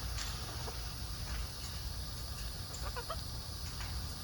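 A few faint, short parrot calls about three seconds in, over a steady high hiss and low rumble.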